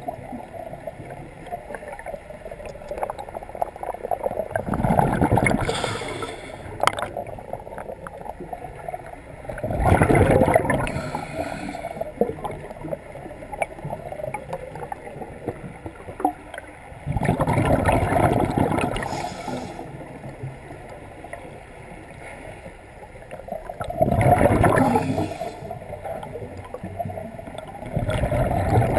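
Scuba diver exhaling through a regulator underwater: a rush of bubbles lasting one to two seconds, about every six or seven seconds, five times, with quieter underwater noise between breaths.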